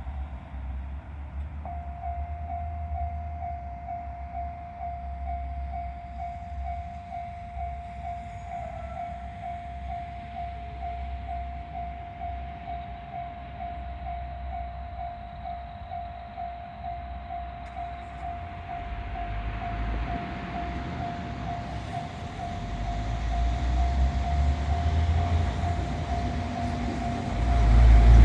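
Japanese level-crossing warning bell of the Tōhoku type, a single electronic tone repeating steadily, starts about two seconds in. An approaching electric train, a Fukushima Kōtsū 1000 series, rumbles in under it and grows louder over the last several seconds.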